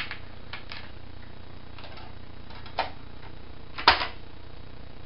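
Light plastic clicks and taps of a game disc being loaded into an original PlayStation 1 (SCPH-1002) and its disc lid being handled, with one sharp, louder click about four seconds in.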